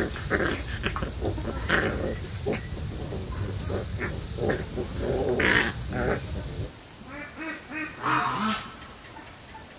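Young dogs yelping and whining in many short calls in quick succession, over a low background hum. About seven seconds in, the hum drops away and a few softer, fainter animal calls follow.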